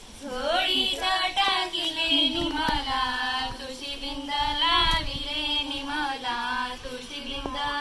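Group of women and girls singing a traditional folk song together in unison.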